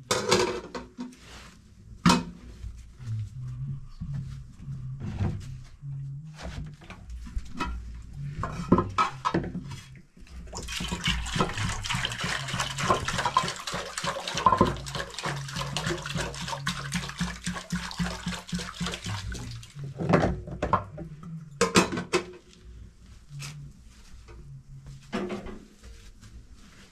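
Water running or pouring steadily for about ten seconds in the middle, with scattered sharp knocks and clatter before and after it.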